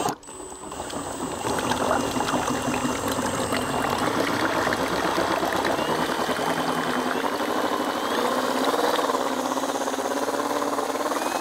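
Cordless drill with a whisk attachment running in a bucket, beating a foaming liquid boilie mix. A motor whine that wavers in pitch sits over the splashing and churning of the whisk in the liquid. It builds up over the first second or two, then holds steady.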